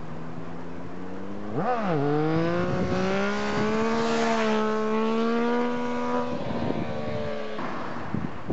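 Motorcycle engine revs up sharply and holds high revs while the bike rides a wheelie along the road. The engine pitch drops in two steps near the end as it goes by.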